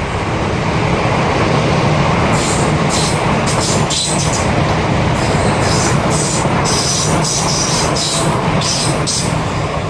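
Passenger train passing close by on the track, a loud steady rumble of wheels on rail. From about two and a half seconds in, a run of short, sharp high-pitched clatters rides on top of the rumble.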